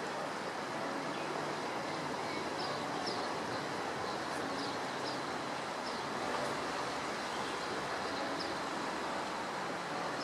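Steady rushing of a swollen river running high in flood, with short bird chirps every second or so.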